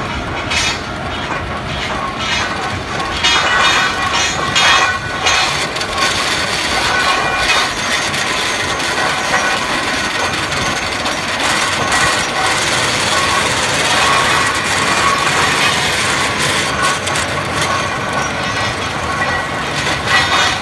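Tractor-drawn two-row plastic mulch layer at work laying film on raised beds: a steady, loud mechanical rattle and clatter with scattered knocks.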